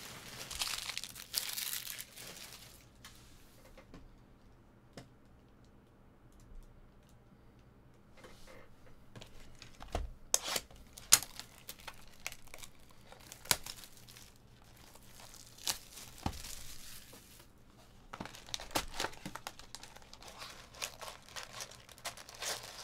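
Trading card pack wrappers being torn open and crinkled by hand, in uneven bursts. There is a lull of a few seconds near the start, and a few sharp clicks come midway as the cards are handled.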